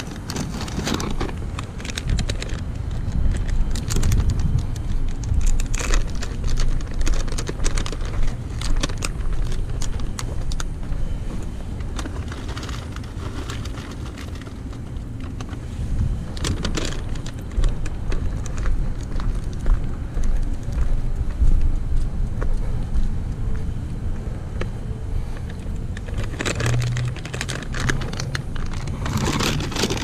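Plastic bags and cat-food packets rustling and crinkling as they are handled, over a steady low rumble.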